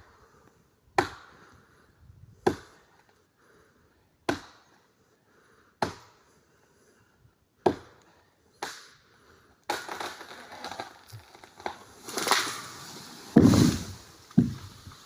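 Axe chopping into wood: six sharp strikes about every one and a half seconds, then a run of cracking and splintering with a heavy thud about thirteen and a half seconds in.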